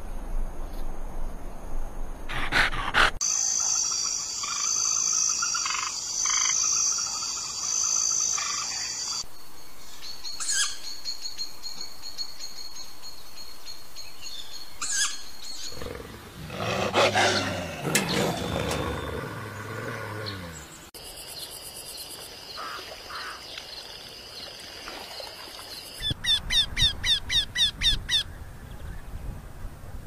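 A string of wild animal sounds: high insect-like trilling and bird chirps, then about 16 seconds in a few seconds of deep snarling growls from grey wolves. Near the end comes a quick series of about eight rising, ringing calls from a Eurasian wryneck.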